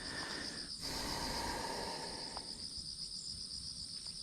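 Insects chirring: a steady, finely pulsing high trill that runs on unbroken. A soft rushing noise swells briefly about a second in.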